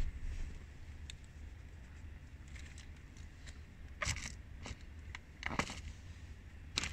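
A rubber-soled sneaker stepping and shuffling on a tiled floor: a few short scuffs and taps from about four seconds in, over a low steady hum.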